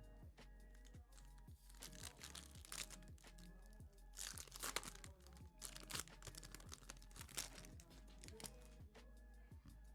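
Quiet background music with a steady beat. Over it, bursts of crinkling and rustling come from trading-card packaging being handled, from about two seconds in until past seven seconds.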